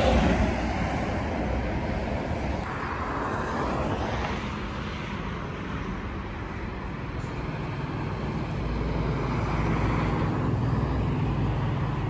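Road traffic at a city intersection: a steady rush of passing cars, louder for a moment at the very start.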